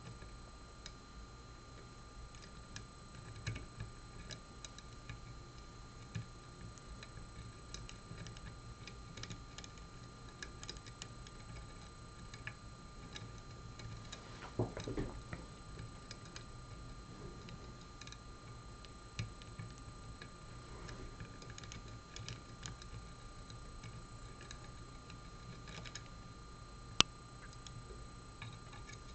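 Faint, irregular clicks and ticks of a dimple pick and tension wrench working the pins of a Mul-T-Lock Interactive lock, with one sharp click near the end.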